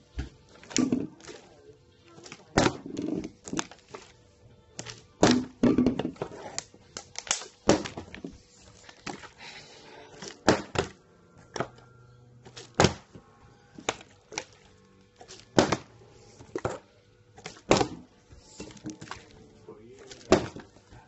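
A plastic water bottle being flipped and landing again and again on a wooden tabletop: a hollow thunk every second or two, some landings with a quick bounce.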